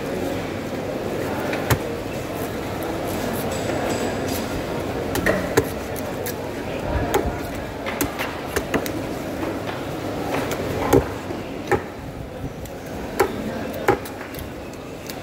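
Large knife striking a wooden chopping block while cutting rohu fish steaks into chunks: irregular sharp knocks that come more often in the second half, over a steady murmur of background voices.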